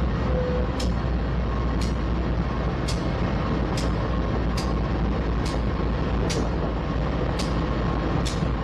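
Union Pacific diesel locomotives rolling slowly past, their engines running with a steady low rumble, and sharp ticks repeating about once a second.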